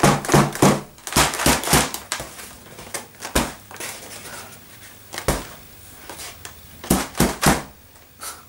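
Inflated foil wine-cask bladder (goon bag) being handled: a series of sharp crinkles and taps in clusters, with quieter gaps between.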